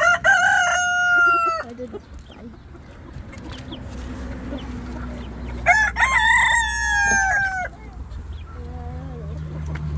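A rooster crowing twice, each crow a long held call of about two seconds: one right at the start and another about six seconds in.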